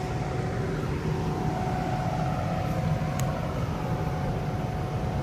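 Skid steer loader engine running steadily under a working load, heard from the operator's cab. It is a constant low rumble with a thin, steady whine above it.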